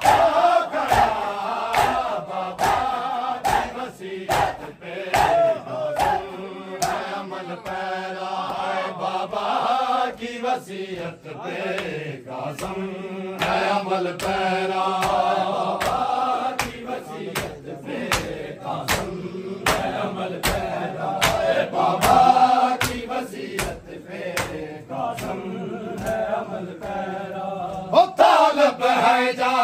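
A group of men chants a noha, a Shia lament, in unison with long drawn-out lines. Sharp hand slaps of matam chest-beating keep time about once a second.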